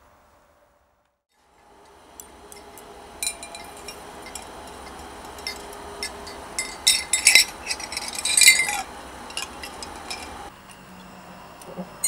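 Irregular light clinks and taps against a glass jar as a wooden stick with a wire hung from it is worked in the liquid. The clinks come in clusters and are busiest between about seven and eight and a half seconds in.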